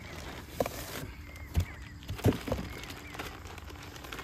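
A cardboard box being handled as a packed tent in its bag is pulled out of it: a few dull knocks and thumps with light rubbing in between.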